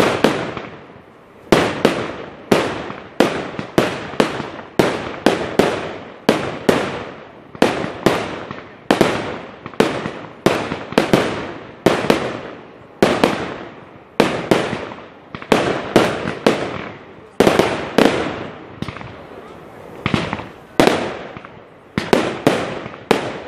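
Fireworks display: aerial shells bursting one after another, more than one a second, each a sharp bang that trails off in a short echo.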